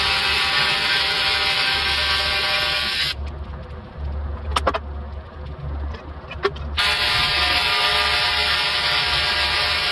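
AC TIG welding arc from an ARCCAPTAIN TIG 200P on aluminum, a steady buzz with hiss. The first bead stops about three seconds in; after a quieter pause with a couple of sharp clicks, the arc is struck again about seven seconds in and runs on.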